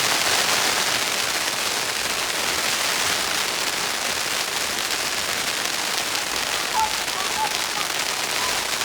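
A long string of firecrackers going off in a dense, continuous crackle, with a few faint voices around seven seconds in.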